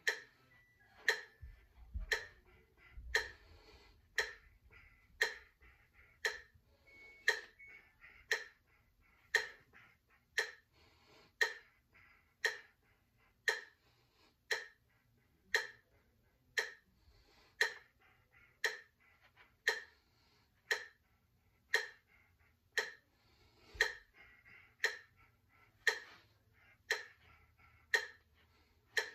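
Metronome clicking at a steady tempo of about one beat a second, keeping time for the movement exercise.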